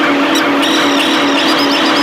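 Noise music: a loud, dense wall of noise over a steady low drone, with a click about half a second in, after which a fast repeating high-pitched pattern joins.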